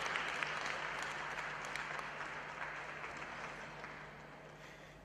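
Arena audience applauding, the clapping gradually dying away.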